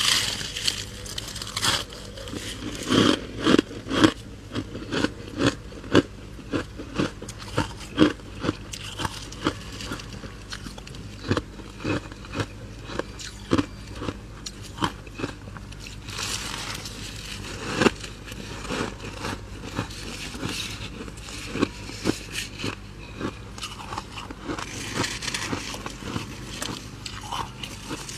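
Freezer frost being bitten and chewed: a long series of sharp, crisp crunches, about one or two a second.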